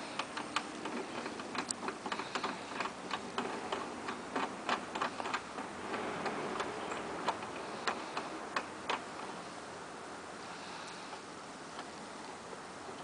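Irregular small clicks and ticks of a plastic threaded knob being screwed down by hand into a fiberglass kayak deck, tightening the joint between the take-apart hull sections. The clicks stop about nine seconds in.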